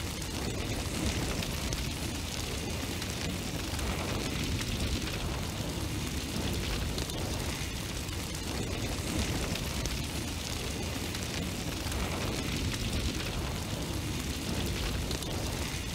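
Steady, unbroken rushing noise with a deep rumble underneath, with no music or voice.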